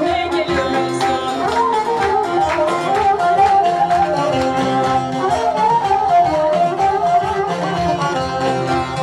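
Live Turkish folk music in an instrumental passage: a kabak kemane (bowed gourd fiddle) plays the melody over a strummed bağlama and hand percussion keeping a steady beat.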